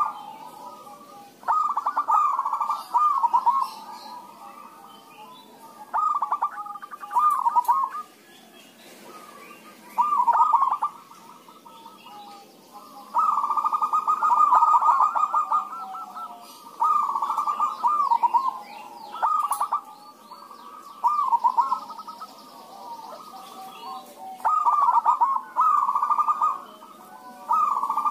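Zebra doves cooing, several birds answering one another with rapid, trilled coo phrases. The phrases come in bouts of one to three seconds, every few seconds.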